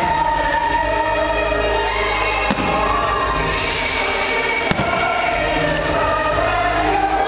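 Choral show music accompanying a fireworks display, with fireworks shells bursting overhead in a few sharp bangs, about two and a half, five and six seconds in.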